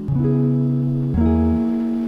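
Background music: plucked guitar chords with a bass line, a new chord about once a second.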